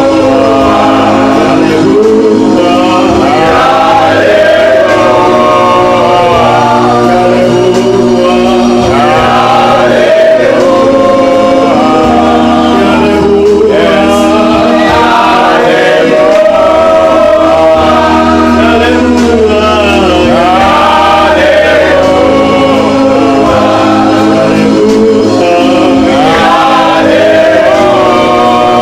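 Congregation singing a gospel worship song together, with men's voices among them, over steady sustained instrumental or hummed low notes.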